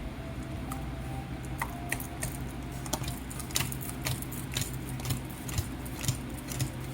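Tarot cards being handled and shuffled: irregular light clicks and snaps, several a second at times, over a faint steady low hum.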